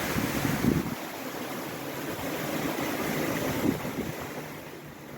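Strong wind and breaking open-ocean waves around a sailboat in a rough sea, with wind buffeting the camera microphone; pretty loud. Loudest in the first second, easing off toward the end.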